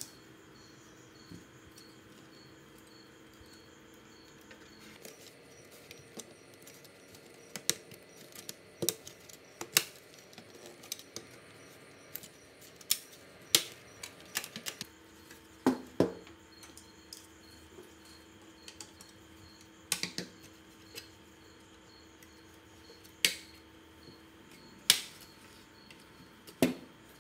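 Irregular clicks and knocks of a Sony CK-11 CD radio cassette player's hard plastic casing being handled and fitted together, about fifteen sharp taps, some with a short hollow ring.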